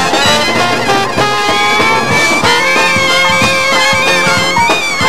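A traditional New Orleans-style jazz band playing live: trumpet, trombone and sousaphone over a drum kit keeping a steady beat, with several melody lines sounding at once.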